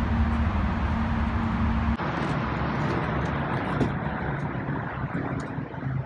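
A steady low engine-like rumble that changes abruptly about two seconds in, with faint scratching from a hand deburring tool reaming out the cut end of a copper refrigerant line.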